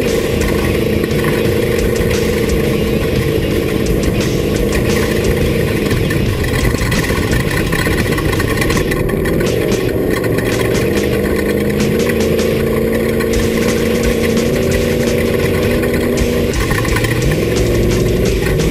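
Off-road race vehicle's engine running steadily, its pitch shifting up and down a few times, over a constant rush of driving noise.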